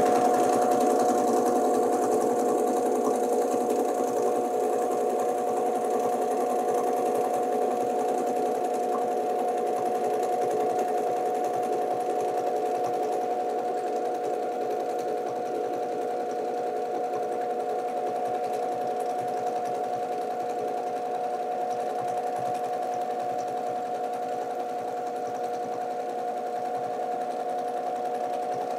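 Domestic sewing machine running continuously while free-motion quilting through the quilt layers, a steady hum with the rapid chatter of the needle.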